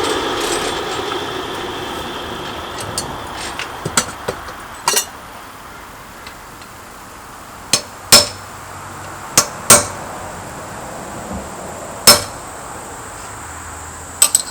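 A blacksmith's hammer striking a steel spanner on the anvil, about nine separate blows at uneven spacing, several with a high ring after them. A rushing noise fades out over the first few seconds.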